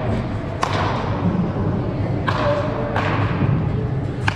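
Baseball bat hitting balls during batting-cage practice: a few sharp cracks, roughly one every second or so, the last near the end the loudest, each ringing on in the echo of a large indoor hall over a steady low rumble.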